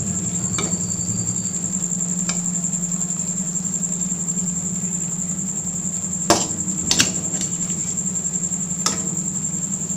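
A few sharp clicks of a cooking utensil against the pot as fish pieces are set on the rice, the loudest about six and seven seconds in, over a steady low hum and a constant thin high-pitched whine.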